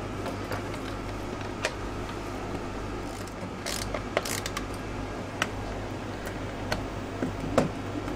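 Scattered small clicks and scrapes of a screwdriver and plastic wiring plugs being worked on an electronic circuit board, over a steady low hum.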